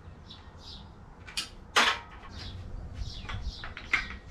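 Metal tools and parts clinking and clanking as they are handled, a string of short sharp knocks with the loudest about two seconds in.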